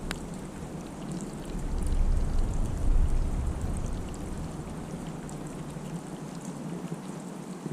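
Heavy wet snowfall: a steady hiss like light rain with faint scattered ticks of flakes and drips landing, over a low rumble that fades out near the end.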